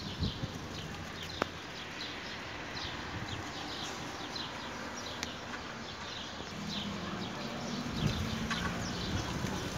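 Wind through potted poplar saplings, their leaves rustling and fluttering continuously, with many short, high, crisp ticks. From about two-thirds in, gusts of wind rumble on the microphone grow louder.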